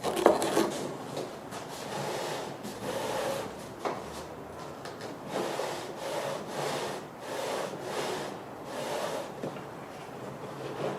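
Wood being rubbed in repeated back-and-forth strokes, roughly one a second, with a sharp knock just after the start and another about four seconds in.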